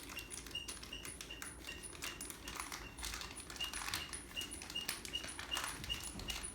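Squeaking ceiling fan: a short, high squeak repeating evenly about three times a second. Over it come scattered crinkles and clicks from hands working open a small cane-tip packet.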